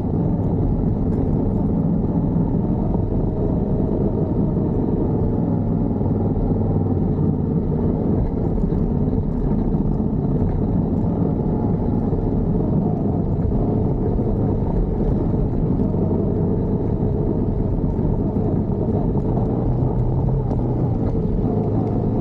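Yamaha Ténéré 700's parallel-twin engine running steadily under way on a dirt track, a muffled, low rumble with no changes in pitch or sudden noises.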